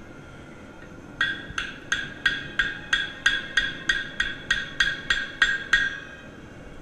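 Hammer striking forged steel about fifteen times in an even rhythm, roughly three blows a second, each blow leaving a short clear metallic ring. It is the hammering that sets the putter neck's loft and lie angles.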